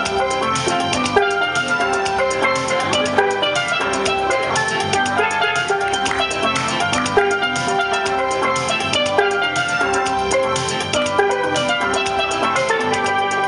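Steel pans playing a tune together, one lead pan and a pair of pans, over a steady, fast rhythmic beat.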